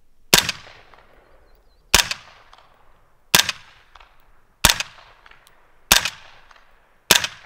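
Six suppressed 9mm shots in slow semi-auto fire from an Angstadt MDP-9 roller-delayed carbine with a Dead Air Primal suppressor, firing 147-grain subsonic rounds. The shots come about one every 1.3 seconds, each a sharp report with a short trailing echo.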